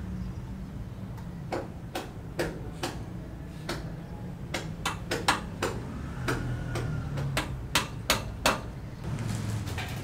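Hand hammer striking on a concrete wall: about a dozen sharp knocks at an irregular pace, some in quick runs of two or three, over a steady low background rumble.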